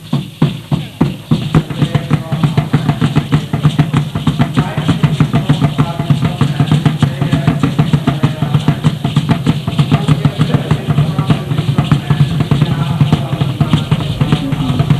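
Drumming: a steady, fast beat of several strokes a second, with a deep low body, that quickens about a second in.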